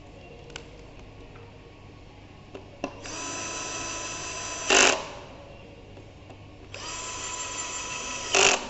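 Small electric screwdriver running twice with a steady whine, each run of about two seconds ending in a brief, louder burst just before it stops, typical of a screw being driven or backed out of the headset's housing. A couple of faint clicks come before the first run.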